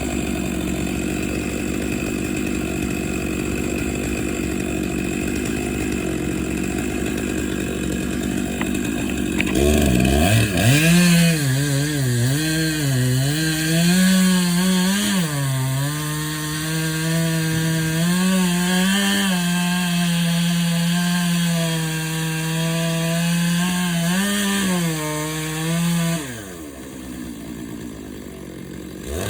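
Large gas chainsaw cutting into oak. A steady engine drone for the first third, then from about ten seconds in the saw runs at full throttle, its pitch sagging and recovering again and again as the chain bites into the wood; it drops off about three seconds before the end, then revs up again.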